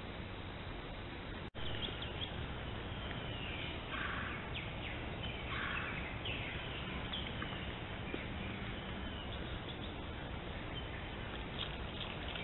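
Steady hiss from a trail camera's microphone; after a short dropout about a second and a half in, wild birds call and chirp repeatedly in morning woodland, with two louder, harsher calls.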